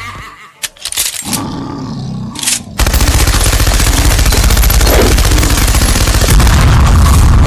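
A train passing close by, a loud rumble with rapid clatter that starts abruptly about three seconds in, after a few brief quieter noises.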